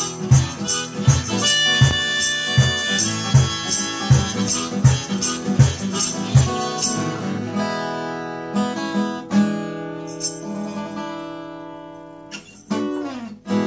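Acoustic guitar and neck-rack harmonica playing a country-blues instrumental ending over a steady low beat. About halfway through the beat stops and chords ring out and fade, with a last strum near the end.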